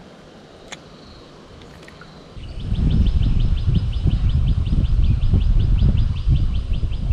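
Spinning reel being wound in to retrieve a lure: a fast, even ticking from the turning reel, about five or six ticks a second, over loud low noise, starting a couple of seconds in.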